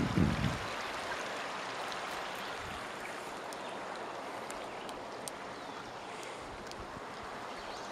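Steady rush of river water running through and over a beaver dam, with a few low thumps in the first half second.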